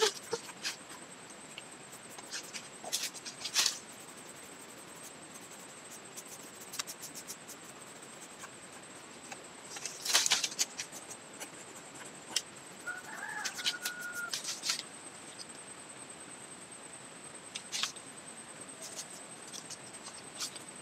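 A small knife scraping and cutting into the bark of a lychee branch in short strokes, with a louder run of scraping about ten seconds in. A steady high whine runs underneath, and a short bird call comes at about thirteen seconds.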